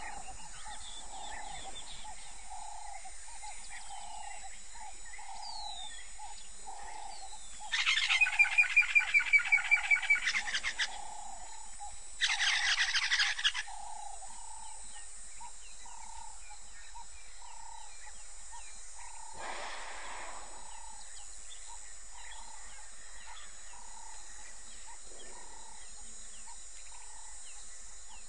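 Wild birds calling: about eight seconds in, a loud, rapid chattering call of quickly repeated notes lasts about three seconds, and a shorter burst follows a second later. Underneath, a soft note repeats about every two-thirds of a second over a steady high hiss.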